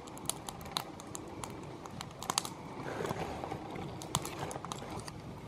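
Dull steel knife blade being drawn through the coarse carbide slot of a Smith's pocket knife sharpener, a short rasping scrape about three seconds in, as the carbide cuts a new edge on the blade. Light irregular clicks are scattered throughout.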